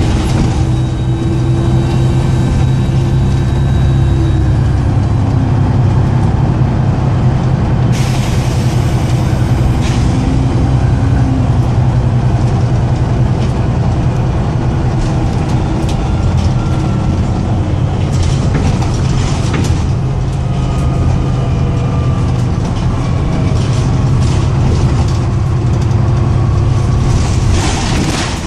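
Volvo B7TL bus's six-cylinder diesel engine running loud and rough, with a bad turbo leak that makes it sound awful. Loud hisses of air come about eight seconds in, again around eighteen seconds, and near the end.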